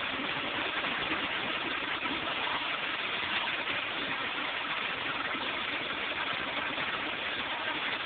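Commercial flushometer toilet still flushing: a steady rush of water through the flush valve into the bowl, part of a flush that runs on for about two minutes.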